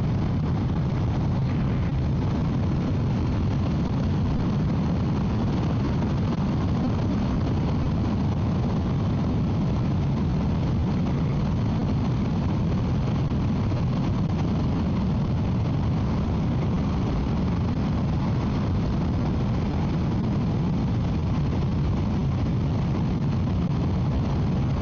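Steady wind rush and motorcycle road and engine noise at highway speed, heard through a microphone inside the rider's helmet.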